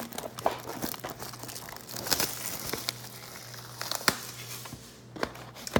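Plastic shrink-wrap crinkling and tearing, with scattered clicks and taps, as a sealed hobby box of trading cards is unwrapped.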